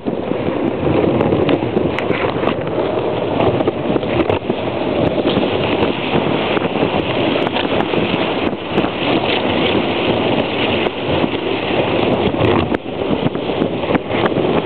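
Steady wind noise buffeting the microphone of a camera riding on a moving dog sled, with scattered small clicks and knocks.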